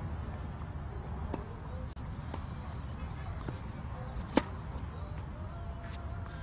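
Tennis racket striking the ball on a serve: one sharp crack about four seconds in, over a steady low background rumble.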